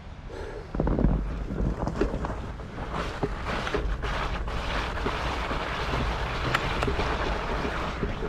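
Wind buffeting the microphone while a fat bike rides through snow, a steady rush that grows louder about a second in, with scattered small clicks and knocks.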